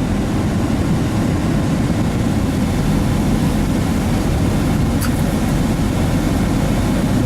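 Pickup truck running down the road, heard from inside the cab: a steady low rumble of engine and tyre noise.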